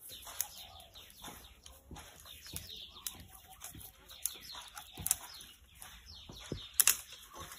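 Dry brushwood stalks rustling, cracking and snapping as they are handled and bound into bundles by hand, in irregular sharp clicks with the loudest crack near the end.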